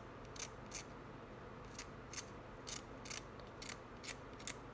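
Hobby knife blade scraping around the edges of a two-speed gearbox's clutch shoes in short, faint strokes, about ten at roughly two a second. The blade is radiusing and deburring the shoe corners so that they cannot touch the housing.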